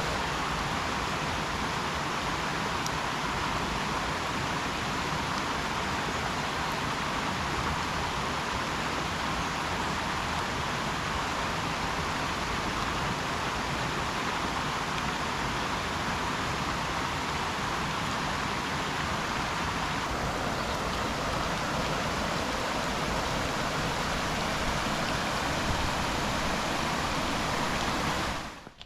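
A stream running steadily, a constant rush of water that cuts off suddenly near the end.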